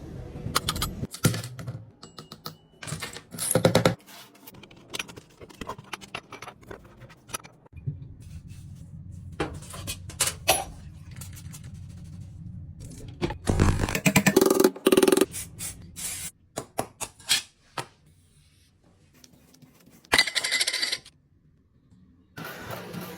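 Metal parts of an old alarm clock being handled during restoration: irregular small clicks, clinks and knocks. There are two longer stretches of scraping, about fourteen and twenty seconds in.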